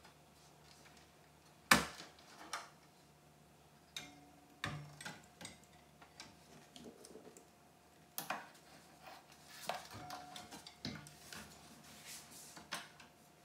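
Scattered hard clicks and knocks of a graphics card and its riser cable being handled and seated in an open metal mining-rig frame, the sharpest knock a little under two seconds in, over a faint steady hum.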